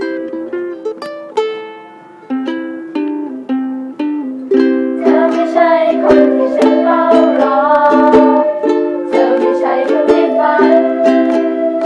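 A small ensemble of ukuleles strumming chords of a Thai pop song. About four and a half seconds in, the music gets louder as a sustained higher melody joins over the strumming.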